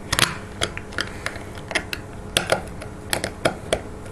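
Small plastic and metal parts of an old digital camera clicking and tapping as it is taken apart by hand: a quick, irregular series of sharp clicks.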